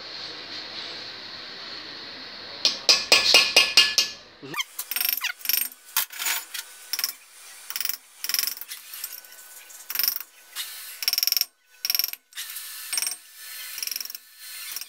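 Hammer striking a small chisel against an aluminium cylinder head, chipping out cracks before TIG welding: sharp metallic taps. A steady hiss comes first, then a fast burst of taps about three seconds in, then irregular single and double taps.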